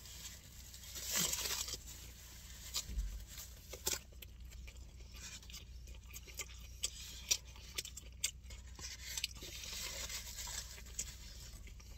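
Foil-and-paper food wrapper crinkling and rustling in scattered short crackles as a grilled chicken wrap is unwrapped, handled and bitten into.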